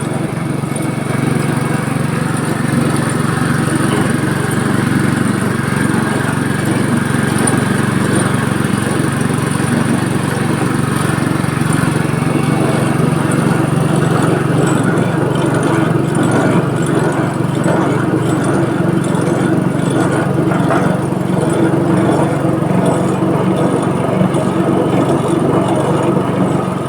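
Type A22 coconut milk press machine running steadily while pressing young coconut, a constant motor drone with rattling from the pressing mechanism.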